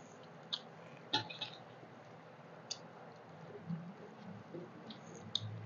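Faint sounds of eating by hand: scattered short, wet clicks and smacks from chewing and from fingers mixing rice on steel plates.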